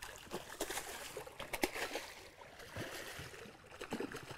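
A hooked bass splashing and thrashing at the water's surface during the fight, in a run of irregular splashes.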